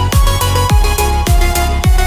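Electronic dance music: a deep kick drum that drops in pitch, a little under two beats a second, over a steady bass line and held synth notes.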